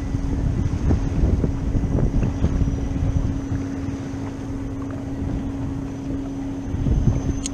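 Small boat's motor running steadily under way, a constant hum over wind buffeting the microphone, with occasional knocks as the hull meets the chop.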